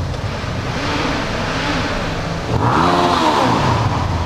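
Motorcycle engine revving up and back down twice inside a road tunnel, the second rev higher and louder, over steady wind noise.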